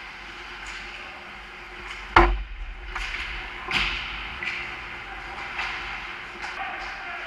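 Ice hockey play close to the net: a sharp loud crack about two seconds in, as of a puck or stick striking hard, followed by lighter stick-and-puck knocks and skate blades scraping and hissing on the ice.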